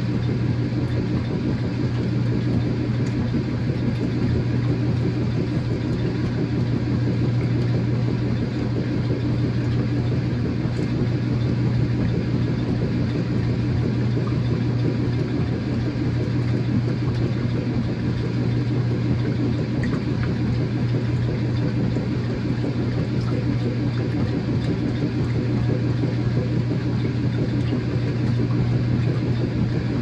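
2007 Whirlpool washing machine running on its permanent press cycle: a steady, low motor hum that holds at one level throughout.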